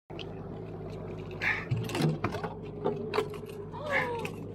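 Evinrude outboard motor running steadily with a low hum, with scattered short clicks and knocks from the hooked fish and lure being handled at the stern.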